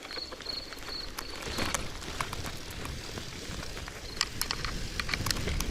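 Old KhVZ bicycle being ridden over a damp dirt and grass track: a steady low rumble of the tyres on the ground, with frequent sharp clicks and ticks from the drivetrain and frame that grow busier near the end.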